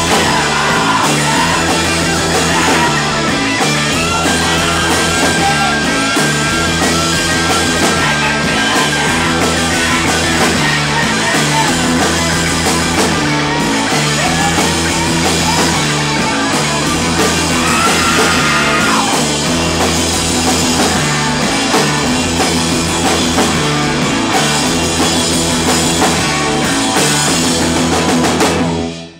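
Live rock band playing a fast, loud song: drum kit, bass and distorted electric guitar over a repeating riff, with a held, wavering guitar note twice along the way. The band stops abruptly right at the end.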